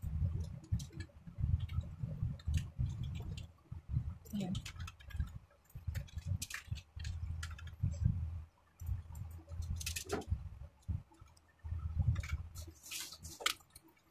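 Irregular low bumps and scattered small clicks, handling noise close to the microphone.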